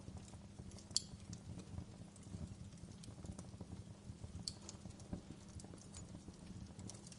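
Wood fire crackling: a steady low rumble of the burning logs with frequent small pops, and two sharper snaps, one about a second in and one midway.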